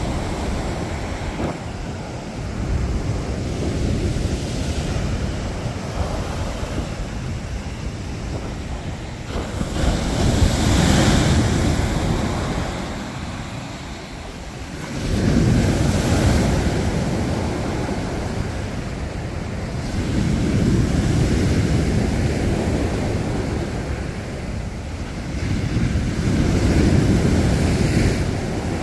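Choppy Mediterranean surf breaking on the beach in a rhythmic wash, a wave surging in about every five seconds. Wind rumbles on the microphone underneath.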